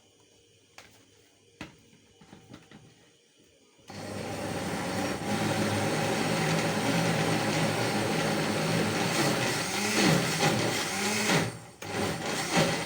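After a few quiet light clicks, an electric blender is switched on about four seconds in and runs steadily, pureeing boiled spaghetti with its cooking water and sugar. It stops a second or so before the end, followed by a few knocks.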